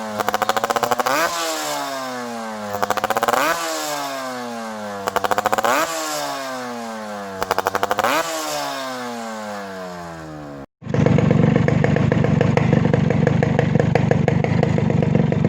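Yamaha RX100 two-stroke single-cylinder motorcycle engine blipped about four times, each rev rising sharply and falling slowly back, with a rapid crackle of exhaust pops as it revs. After a sudden break near eleven seconds in, the engine runs steadily, louder and more clattery, at a constant speed.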